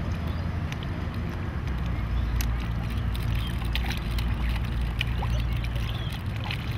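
Shallow water sloshing around wading legs, with small sharp splashes from a swarm of fish and a hand dipping in at the surface. A steady low rumble of wind on the microphone runs underneath.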